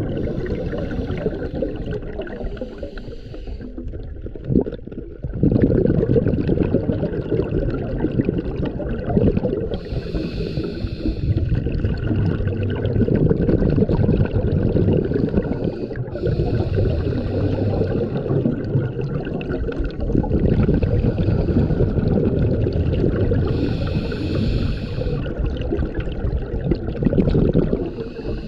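Scuba diver breathing through a regulator underwater: a low gurgling rumble of exhaled bubbles, with a higher hiss of inhaled air every several seconds.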